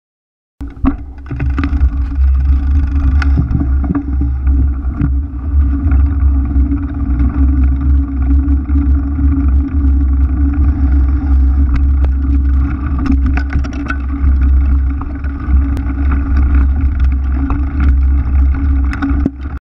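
Knobby mountain-bike rear tyre rolling over paving and grass, heard through a camera mounted on the bike: a loud, steady low rumble with a hum and many small clicks and rattles from the frame. It starts about half a second in and cuts off abruptly at the end.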